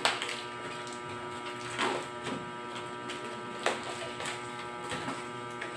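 A cardboard parcel being handled and pulled open by hand: several short rustles and rips of packaging, one near the start, one about two seconds in and a few more later, over a steady background hum.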